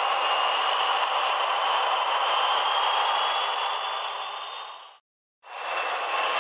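Model railway trains running on the track: a steady whirring hiss with a faint high whine from the locomotive motor. It cuts out for a moment about five seconds in and fades back in.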